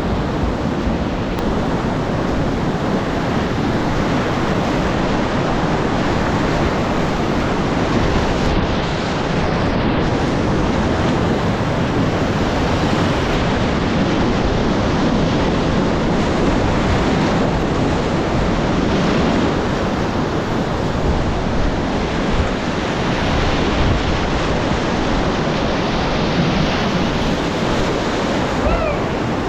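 Loud, steady rush of whitewater in a river at high flood flow, with wind buffeting the microphone.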